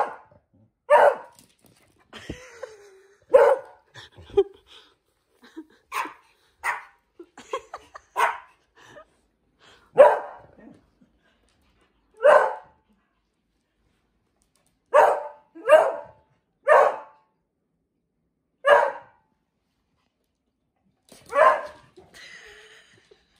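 A Pomeranian and a beagle barking at each other in play: about fifteen short, single barks at irregular intervals, often a second or two apart, with longer pauses between some.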